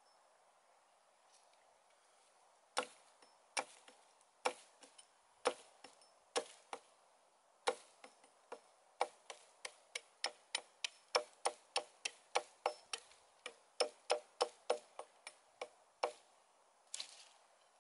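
A small blade chopping into a dry stick, making sharp wooden chops. They start about three seconds in, sparse at first, then settle into a quick run of about three a second before stopping near the end.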